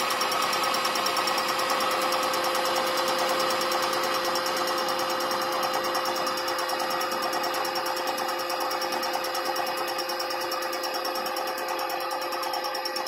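Homemade fly cutter in a milling machine spindle facing a metal block: a steady machining whine with a fast, even ticking.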